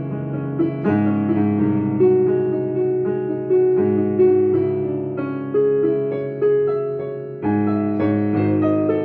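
A piano being played: a slow piece of sustained chords, with a new chord or bass note struck about every second.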